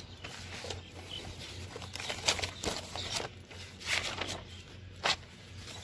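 Rustling and light knocks of mower mulching-kit parts and their packaging being handled and sorted, in short scattered strokes over a faint steady low hum.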